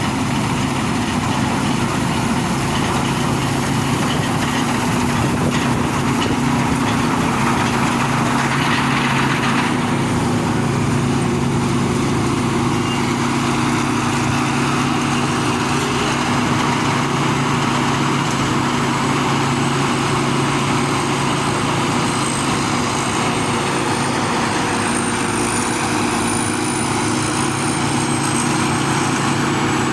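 Jao Phayu rice combine harvester's engine running steadily under load, with a thin high whine that comes in about two-thirds of the way through.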